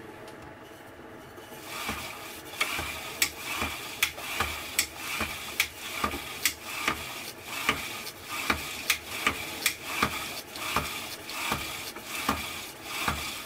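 Hand-pumped pump drill spinning a small 3D-printed DC generator: a rhythmic whirring and rubbing with a sharp click about twice a second as the crossbar is worked up and down, starting a couple of seconds in.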